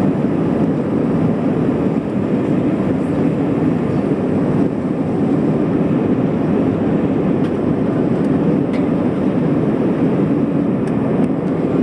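Steady cabin noise of an airliner in flight, heard from inside the cabin, with a few faint clicks near the end.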